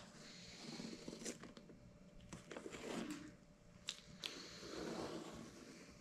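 Masking tape being picked and peeled off from under a coat of spray-on bedliner on a vinyl dash pad, crackling and tearing in short irregular bursts, with a few sharp clicks.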